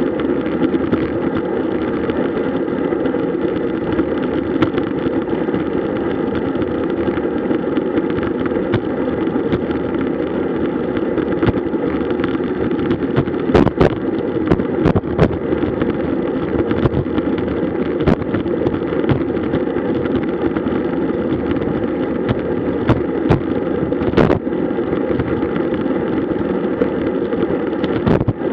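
Steady rush of wind and road noise on the microphone of a camera riding on a moving road bike, with scattered sharp knocks and rattles from bumps, bunched around halfway through.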